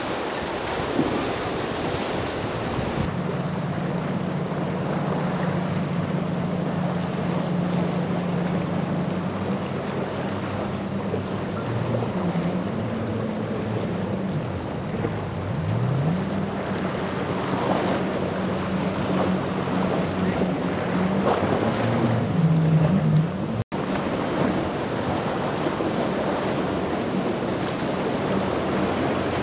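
Outboard-powered boats running fast across open water: a steady low engine drone that rises and falls in pitch a couple of times, over the rush of spray and wake and wind on the microphone.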